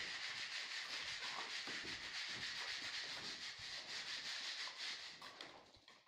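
Steel trowel scraping and spreading wet cement mortar on a stone stair step: a steady rasping hiss with irregular strokes, fading out near the end.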